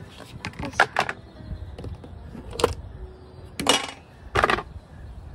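A plastic bucket and containers being handled, with about six sharp knocks and clatters spread over the few seconds.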